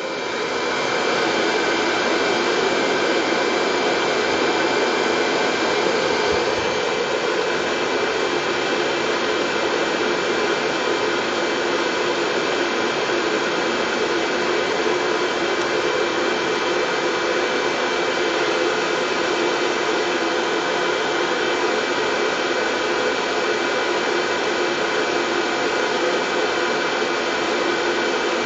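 Steady white-noise track: an even, appliance-like whoosh with faint steady hum tones running through it. It fades in over the first second and then holds level.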